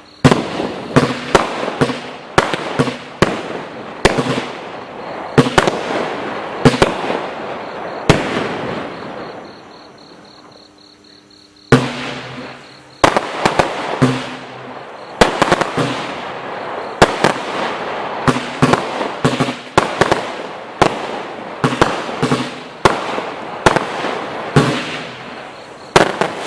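Total FX Wonderland firework going off: a rapid series of sharp bangs with crackling between them. It dies down for a couple of seconds about halfway through, then a second run of bangs follows.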